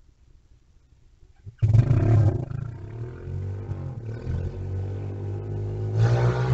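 Mini bike's small engine running and revving, its pitch rising and falling; it starts suddenly about a second and a half in and grows louder near the end as it comes closer.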